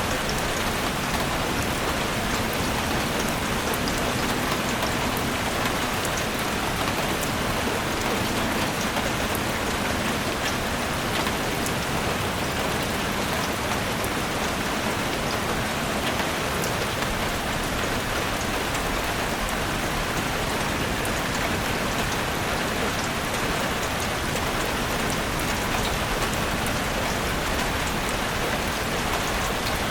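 Steady rain falling in a forest, an even hiss with scattered drop ticks.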